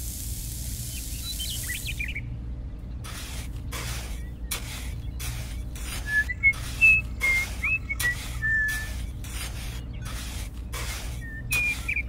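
Sand pouring onto a pile as a steady hiss that stops about two seconds in, then a small hand trowel scraping and patting the sand in short strokes, a little under two a second. Short high bird chirps come through the middle and again near the end.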